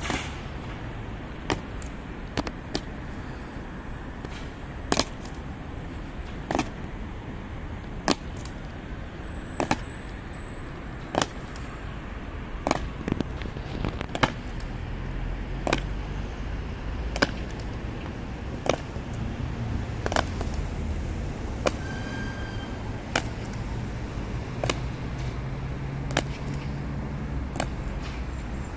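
Boots of a three-man honor guard striking stone paving in unison in a slow ceremonial goose-step, one sharp stamp about every second and a half, over a low steady rumble.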